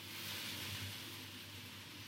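Steady background hiss with a low hum, a little louder for about the first second.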